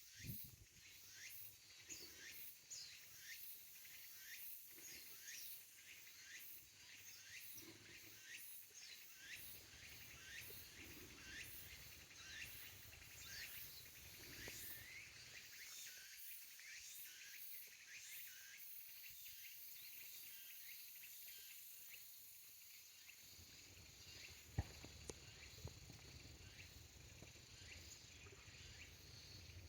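Tsukutsukuboshi cicada (Meimuna opalifera) calling: a long run of quick, repeated high notes that settles into a steadier high buzz in the second half.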